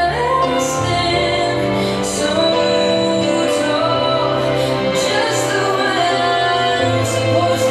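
Recorded song with a female singer over held instrumental chords.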